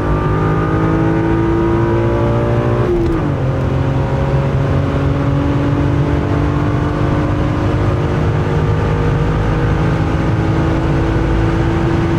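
1996 BMW E36 M3's 3.2-litre S50B32 straight-six at full throttle during a 100 to 200 km/h acceleration run. The engine note rises, drops sharply at an upshift about three seconds in, then climbs slowly again in the higher gear.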